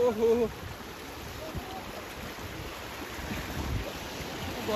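River water rushing over rocks, a steady rush, with wind buffeting the microphone in low thumps. A person's held call trails off in the first half second.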